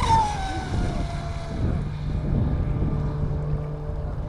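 Electric RC speedboat's motor whine dropping in pitch and fading over the first couple of seconds as the boat throttles back or runs off, leaving a fainter whine.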